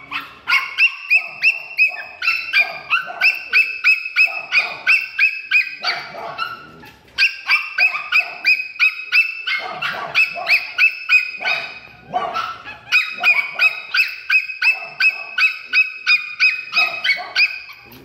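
A dog yapping rapidly, about three or four high yips a second, in three long runs with brief pauses between them.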